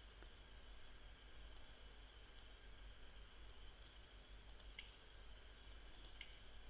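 Faint computer mouse clicks, a scattered handful of short single and paired clicks, over a low steady hum and hiss.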